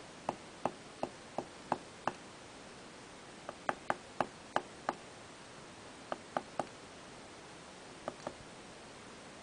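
Small brass pin tumblers being tipped out of an Arrow key-in-knob cylinder plug onto a wooden pin tray: light, sharp metal clicks in small clusters, around a dozen and a half in all, with pauses between the groups.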